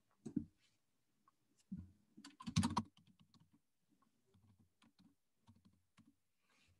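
Computer keyboard keystrokes while a search is typed, a quick run of louder taps about two seconds in, then sparse faint clicks.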